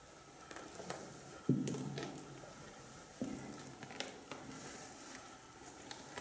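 Footsteps on debris in a concrete tunnel: light crunches and clicks, with two heavier thuds about a second and a half apart.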